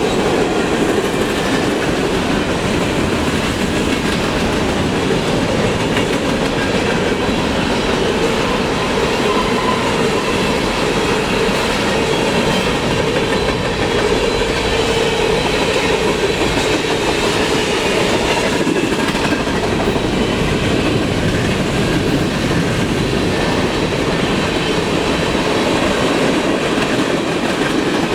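Freight train cars rolling past steadily, their steel wheels clacking over the rail joints with a continuous rumble.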